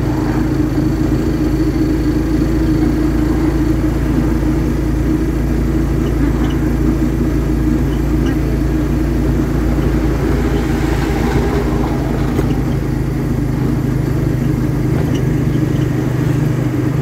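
Engine of the vehicle carrying the recorder running steadily at cruising speed, with road and wind noise.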